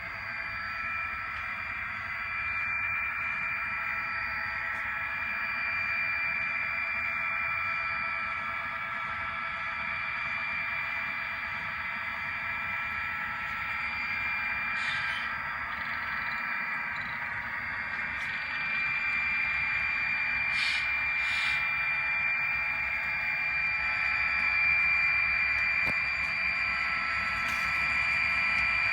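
HO-scale model train running on the layout: a steady electric whine of several high tones over hiss, with a few faint clicks.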